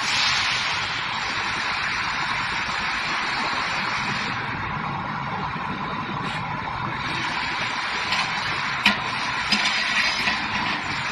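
Truck tire changer running: a steady mechanical hum as the clamped truck wheel is worked at the bead, with a few sharp metal clicks near the end.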